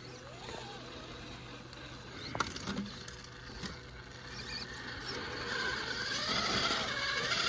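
1/10-scale RC crawler's electric motor and geared drivetrain whining, the pitch rising and falling with the throttle and growing louder toward the end.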